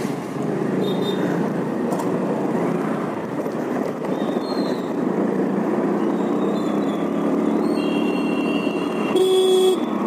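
Honda Dio scooter's single-cylinder engine running as it pulls away and rides along a town road, under steady road and wind noise. A vehicle horn sounds once, for about half a second, near the end.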